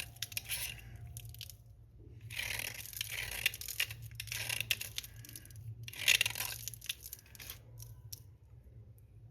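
Slate pencil being bitten and chewed up close: gritty crunching that comes in three bursts, the last ending about three-quarters of the way through.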